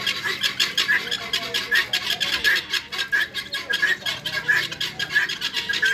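A flock of guinea fowl calling together: a continuous, overlapping run of rapid, harsh clicking calls, many per second.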